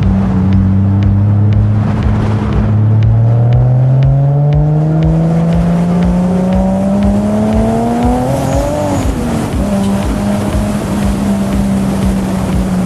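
Toyota Supra's turbocharged 2JZ-GE inline-six accelerating, its pitch rising steadily for about eight seconds. About nine seconds in it falls back, as at an upshift, then holds a steady note at cruising speed.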